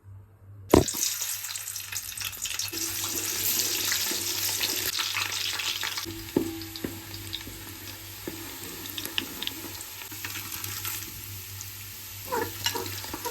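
Food sizzling in hot oil in a cooking pot, starting suddenly with a knock about a second in and then slowly dying down, with scattered clicks of stirring.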